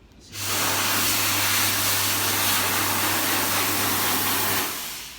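Electric hand dryer blowing: a loud, steady rush of air over a low motor hum that switches on abruptly and cuts off after about four seconds.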